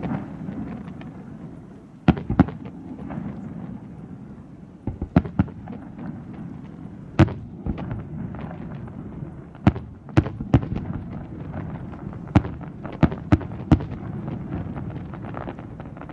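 Fireworks display: about a dozen sharp shell bursts at irregular intervals, some in quick pairs and triples, over a continuous low rumble of further bursts.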